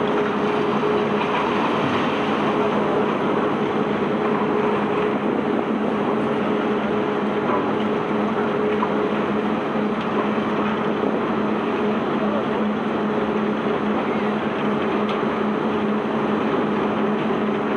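Self-unloading barge's machinery running steadily while it discharges sand: a constant mechanical drone with a steady hum under it.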